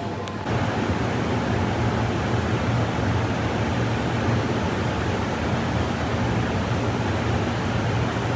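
Electric train running on rails: a steady rumble of wheels and track with a low hum, setting in abruptly about half a second in.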